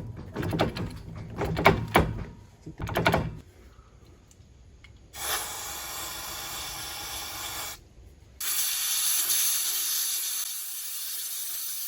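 Two long hissing sprays into the limited-slip differential's clutch packs, cleaning out the clutch discs. The first runs about two and a half seconds and the second, louder, about three and a half. Before them come several sharp clicks and knocks.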